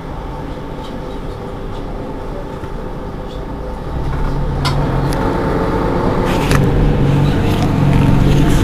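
Mercedes-Benz Citaro G C2 articulated city bus heard on board while driving, its engine and drivetrain running steadily, then growing louder about four seconds in as it pulls harder. A few sharp clicks and rattles sound around the middle.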